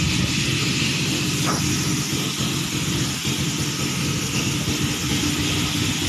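A small pump motor running steadily, with the hiss of water spraying as a pig pen is washed down.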